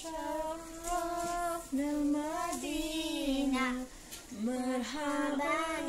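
A high voice singing a slow melody in long held notes that slide gently from one pitch to the next, with a short break about two-thirds of the way through.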